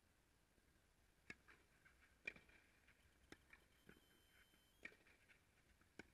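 Faint tennis rally: a string of sharp pops about a second apart from racket strikes and ball bounces, with a brief faint high tone in the middle.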